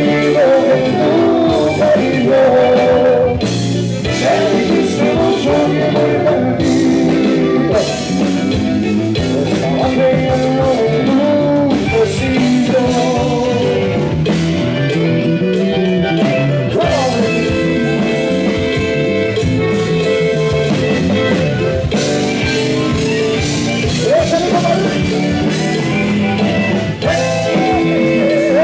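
Live Tejano band playing: button accordion over electric bass, electric guitar and drum kit.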